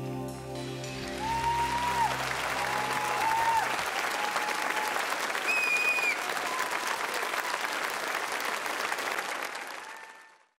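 Studio audience applauding and cheering as the song's last held chord dies away in the first few seconds. Shouts and a high whistle cut through the clapping, and the applause fades out near the end.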